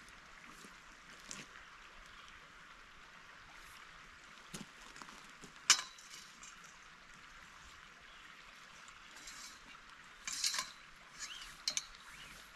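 Metal tent poles clinking and knocking together as they are handled, with one sharp clink about halfway through and a quick cluster of clinks near the end, over a steady faint hiss.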